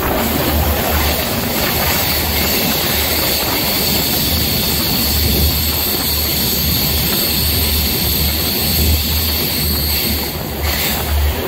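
Train running through a rail tunnel, heard from an open doorway: a loud, steady rumble and rush of noise with a thin, steady high whine above it, dipping briefly near the end.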